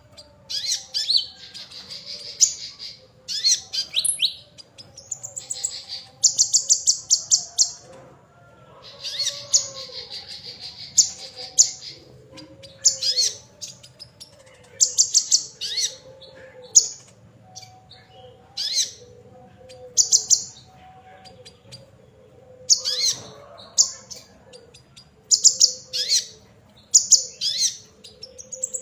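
Songbird singing in high, fast trills and chattering, buzzy phrases, one burst after another with short pauses between.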